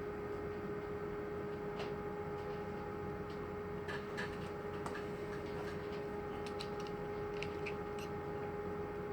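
Scattered light clicks and ticks of a pin-tumbler lock cylinder and its parts being handled as it is reassembled, more frequent in the second half, over a steady hum.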